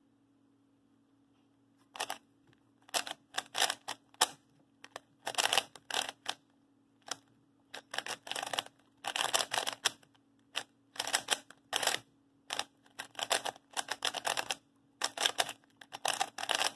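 QiYi Sail W 3x3 speed cube being turned fast by hand: plastic layers clicking and clacking in quick, irregular flurries, starting about two seconds in. The cube is tight and has barely any lube in it.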